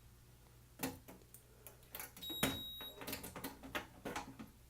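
Fire alarm control panel just after a reset: scattered light clicks and knocks, likely button presses, with one short high beep from the panel about two and a half seconds in, over a faint steady electrical hum.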